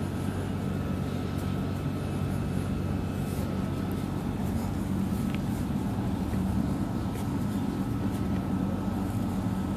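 A steady low motor hum, unchanging throughout, with a faint high steady tone above it.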